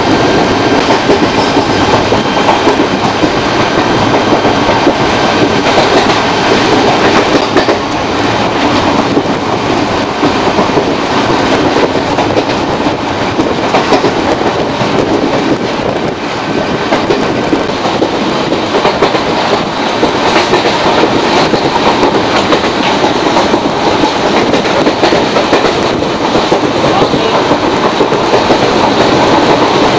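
Train running, heard from on board: a steady rumble with the wheels clattering over the rails.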